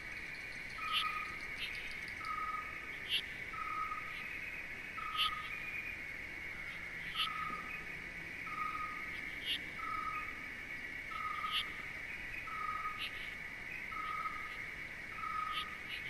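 Night-time nature ambience: a steady high insect trill, a short even hoot-like call repeating a little faster than once a second, and scattered sharp bird chirps.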